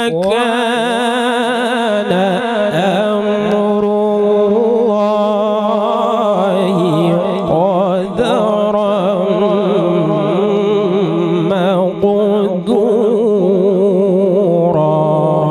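A male qari reciting the Quran in melodic tajweed style: one long ornamented phrase, the voice wavering around long held notes after a rising opening.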